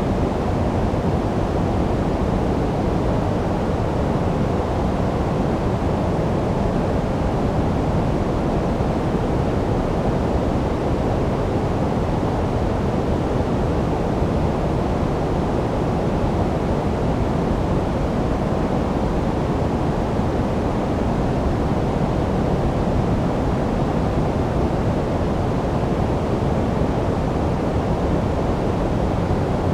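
Steady generated sleep noise, sold as white noise but weighted to the low end: a deep, even rush that does not change.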